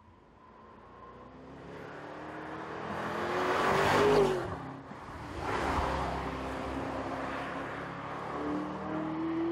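Audi SQ8's 4.0-litre twin-turbo V8 accelerating as the car approaches. It grows louder to a peak a little after four seconds in as the car passes close by, and its pitch drops as it goes past. The engine then pulls on steadily under load as the car drives away.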